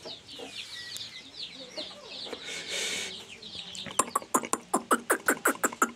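Brooder chicks peeping, many short, high falling chirps. About four seconds in, a fast, even run of sharp knocks begins, about five a second, and is the loudest sound.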